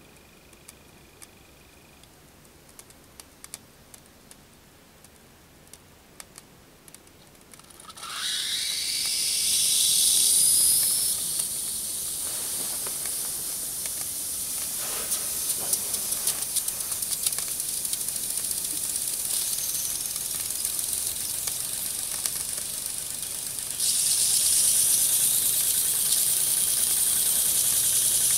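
Brass Hero's engine (aeolipile) model boiling over a meths burner. Faint clicks at first, then about eight seconds in steam starts jetting from its nozzles with a loud hiss and a brief rising whistle. It settles into a steady hiss that gets louder again near the end as the jets spin the ball.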